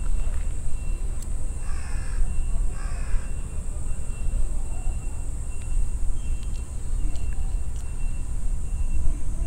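A crow cawing twice in quick succession, about two seconds in, over a steady low rumble of wind on the microphone.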